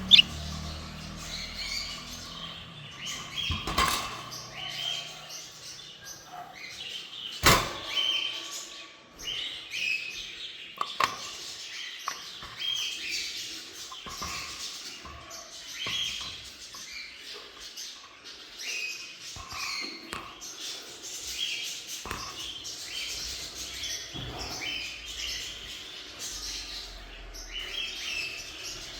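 Small parrots, budgerigars and lovebirds, chirping continually in many short high chirps, with a few sharp knocks in between.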